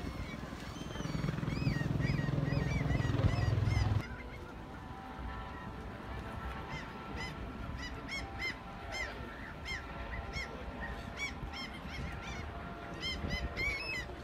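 Birds calling over and over in short, arched, honking calls. A loud low rumble under them cuts off suddenly about four seconds in.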